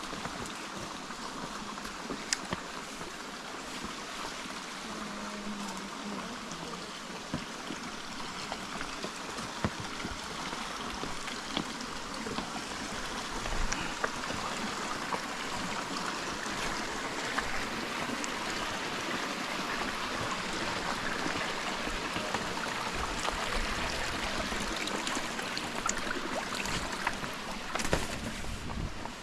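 Steady rush of running water, growing a little louder in the second half, with a few faint clicks scattered through it.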